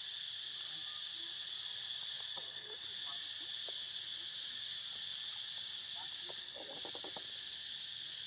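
Steady, high-pitched insect chorus of chirring crickets. About two seconds in and again near seven seconds in there are faint short clicks, a quick little series the second time.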